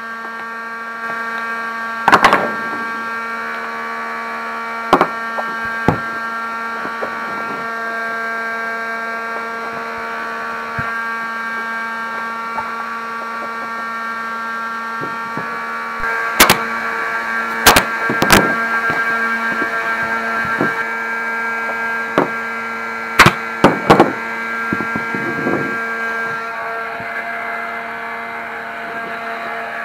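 Pneumatic staple gun firing staples through seat vinyl into a plastic dirt bike seat base: about nine sharp shots, some single and some in quick groups of two or three, over a steady hum.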